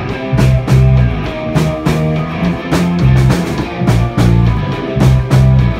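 Rock band playing live: two electric guitars over a drum kit keeping a steady beat, with no singing.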